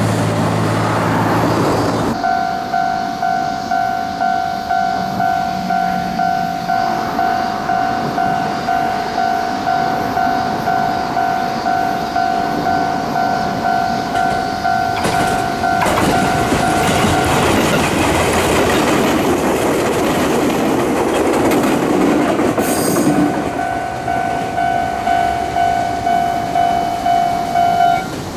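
Railway level-crossing warning bell ringing in an even pulsing beat while a Fujikyuko Line train runs past, its wheels clacking over the rail joints. The train noise is loudest about halfway through, covering the bell, which is heard again near the end.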